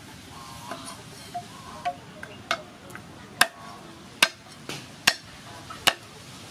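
Cleaver chopping garlic on a thick round wooden chopping block: about eight sharp, irregular knocks, the loudest in the middle.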